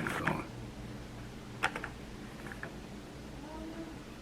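Quiet room tone with a steady low hum. One light click comes about one and a half seconds in, followed by a few softer ticks.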